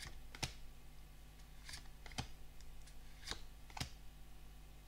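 Pokémon trading cards being cycled through by hand, each card slid off the front of the stack and tucked behind: six light clicks of card on card, in three pairs about a second and a half apart.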